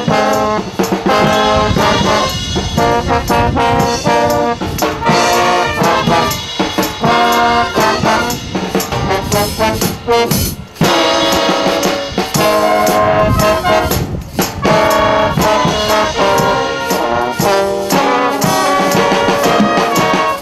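Wind band playing live, with trombones and trumpets leading over reeds and a drum kit with cymbals. The music drops out for a moment about halfway through, then carries on.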